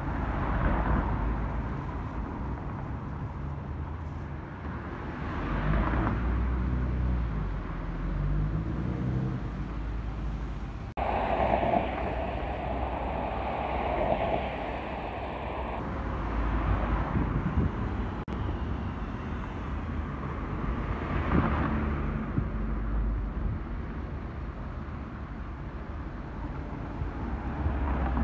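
Diesel double-decker buses running and pulling away, with a low engine rumble that rises and falls, and cars driving past close by. The traffic sound changes abruptly a few times.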